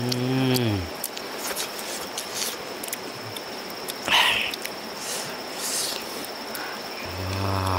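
A man's low hummed 'mmm' of enjoyment while eating, twice, once at the start and again near the end, with small chewing and lip-smacking clicks between. A steady high insect drone, like crickets or cicadas, runs underneath.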